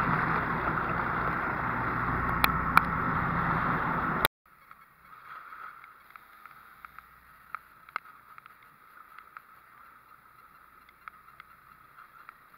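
Wind and water noise on a small boat at sea, steady and fairly loud, with two sharp clicks about two and a half seconds in. It cuts off suddenly about four seconds in, leaving a much quieter stretch with faint scattered ticks.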